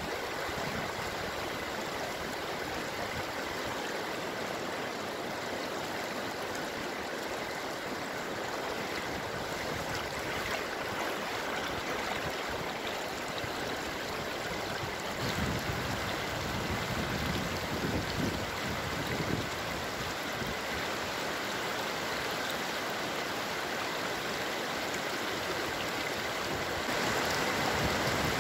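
Water rushing steadily over a reservoir's overflow weir, shallow water pouring across the concrete crest and spilling down in white water. A few low thumps come about halfway through.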